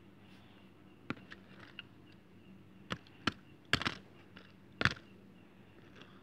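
Hands handling a die-cast toy car and its clear plastic blister card: a scatter of short, sharp clicks and crinkles. The loudest come in a cluster about four seconds in and once more about a second later.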